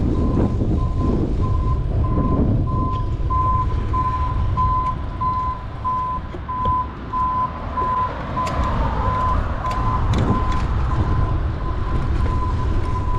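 A vehicle's reversing alarm beeping in a steady series, about two and a half beeps a second, louder in the middle and fading near the end. Underneath is a constant low rush of wind and road noise.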